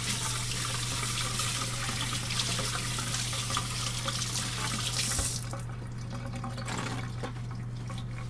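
Kitchen sink tap running while hands are washed under it, turned off about five seconds in, followed by a few faint clicks.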